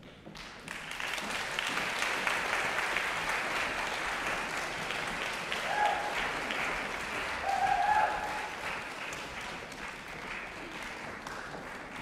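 Audience applause in a concert hall, welcoming the performers onto the stage. The clapping builds within the first second, holds steady, and thins toward the end, with two brief pitched sounds over it midway.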